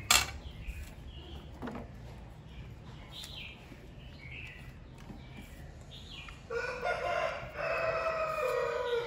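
A rooster crows once near the end, a long call of about two and a half seconds with a short break in the middle. Before it, a sharp click right at the start and faint short bird chirps.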